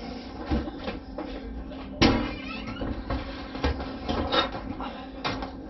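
Clunks and knocks of a microwave being lifted and set into place: one sharp knock about two seconds in and several lighter ones.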